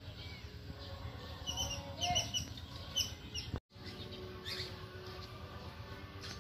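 Small birds chirping, a run of short high chirps about two seconds in and a few more near the middle, over a low steady rumble. The sound cuts out for an instant partway through.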